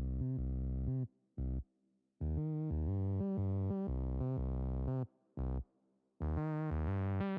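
Synthesizer music: held chords over a deep bass that cut off to complete silence twice, each time with a single short chord in the gap.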